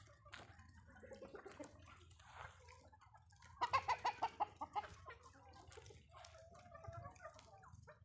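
A flock of free-range hens clucking. About three and a half seconds in comes a quick run of loud clucks, and later a softer drawn-out call.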